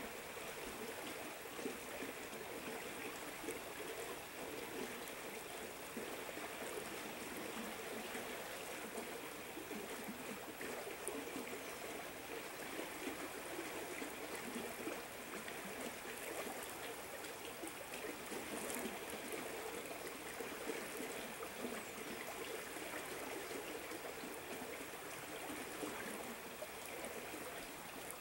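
River water flowing steadily, a continuous rush and ripple of the current.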